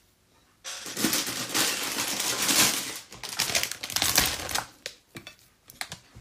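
Dense crackling and rustling right at the phone's microphone, starting suddenly about half a second in and lasting about four seconds, then a few scattered clicks: hands handling food on a plate right beside the phone while eating rice with the fingers.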